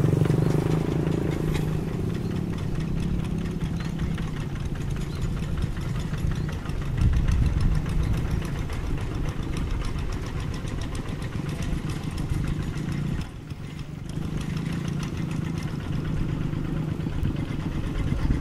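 Single-cylinder diesel engine of a two-wheel hand tractor running steadily under load as its iron cage wheels churn through a flooded paddy. The sound dips briefly about thirteen seconds in.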